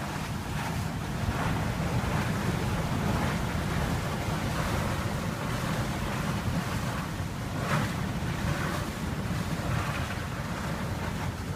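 Strong wind buffeting the microphone over the rushing wash of water along the hull of a Catalina 34 sailboat heeled over and sailing hard. A brief louder hiss of spray comes almost eight seconds in.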